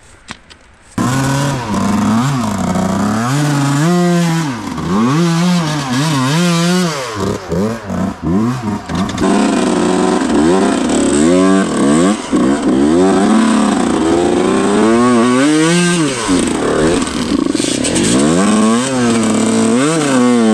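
Two-stroke dirt bike engine being ridden hard. From about a second in the throttle is blipped again and again, so the engine note climbs and drops roughly once a second.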